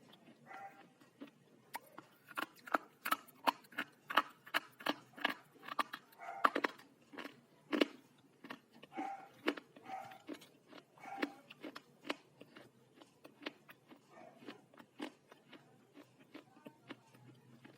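Slate being bitten and chewed: a rapid, irregular run of sharp crunches that thins out near the end.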